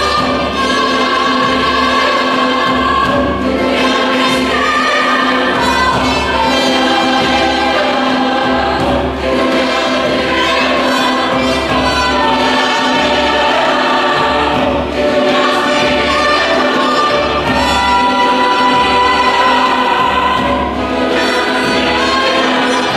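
Mixed choir singing in full harmony, holding sustained chords, with instrumental accompaniment and a repeating low pulse underneath.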